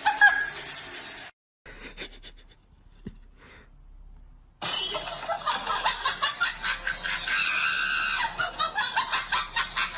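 A person laughing hard in quick repeated bursts, starting suddenly about halfway through. Before that comes a brief pitched sound, then a quiet stretch with a few faint clicks.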